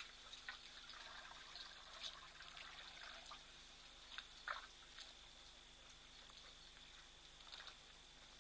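Faint splashing and trickling of water as elephants draw it up in their trunks and spill it into their mouths to drink, in scattered short splashes, the loudest about four and a half seconds in.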